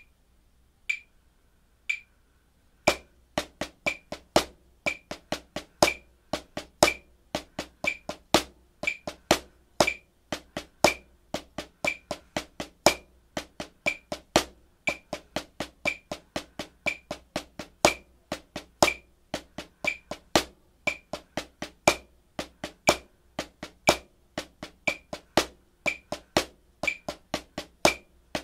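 Snare drum played with sticks in a rudimental solo of accented eighth- and sixteenth-note stickings at a slow 60 bpm, starting about three seconds in. Before it a metronome clicks once a second as a count-in, and the click keeps time under the strokes throughout.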